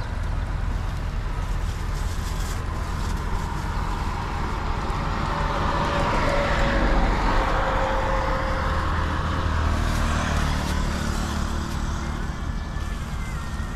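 Road traffic with a steady low rumble; a vehicle passes, swelling loudest about six to eight seconds in and then fading.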